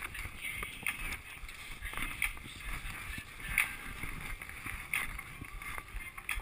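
Skis sliding uphill over snow with poles planting, a rhythmic swish-and-crunch stride about every one and a half seconds.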